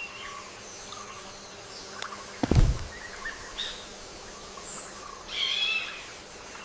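Outdoor background with small birds chirping now and then, and a single dull thump about two and a half seconds in.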